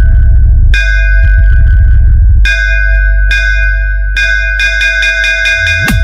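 Electronic DJ bass-test track: bell-like synth strikes ringing out in repeated hits over a heavy, continuous deep bass. A quick bass drop falls near the end.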